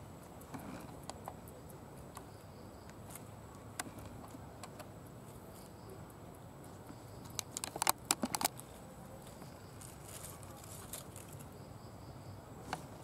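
Quiet outdoor background with scattered light clicks from dry leaf litter, and a brief cluster of sharp crackles about eight seconds in.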